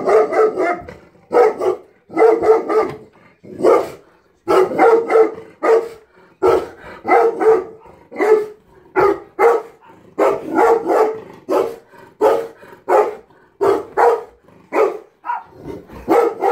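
Dog barking over and over, about one to two barks a second in quick runs, at dogs shown on a television screen.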